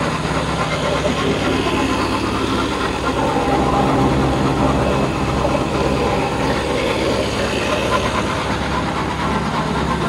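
Steady running noise of a vehicle engine, a constant low hum under a dense rushing noise.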